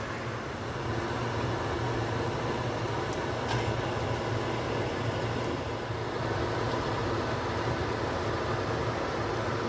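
Steady machine hum with a broad hiss over it, unchanging throughout, and one faint click about three and a half seconds in.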